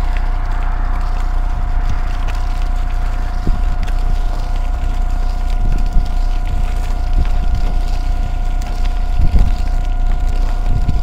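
Electric-assist bicycle riding over rough ground: wind rumble on the microphone, a steady whine from the bike's motor, and scattered knocks and rattles from the bike over bumps.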